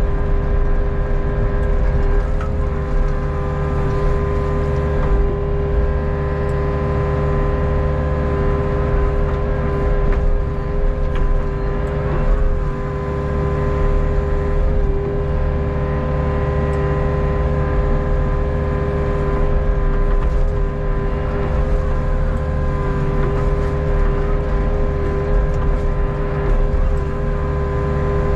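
Hitachi ZX48U mini excavator's diesel engine running steadily at working speed, with a constant whine from the hydraulics as the boom and arm move the bucket. A few short knocks come through now and then.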